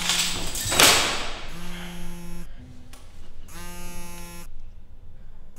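Mobile phone vibrating with an incoming call: a low buzz about a second long that repeats every two seconds. Just under a second in there is a loud rustle of clothing as the phone is pulled out of a trouser pocket.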